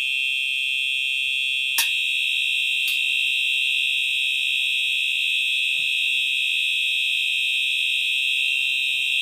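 Simplex TrueAlert horn strobe sounding its horn on the high-volume continuous setting: a steady, unbroken, high-pitched electronic tone that signals an activated alarm zone. A sharp click about two seconds in, and a fainter one a second later.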